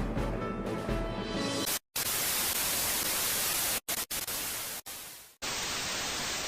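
Background music cuts off abruptly a little under two seconds in. It is followed by a steady hiss of white-noise static with a few brief dropouts.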